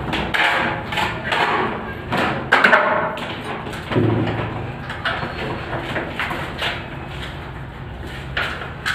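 Steel plastering blades scraping and tapping on a plaster-of-Paris ceiling as wet plaster is spread and smoothed, in irregular scraping strokes with sharper knocks and one duller thud about four seconds in.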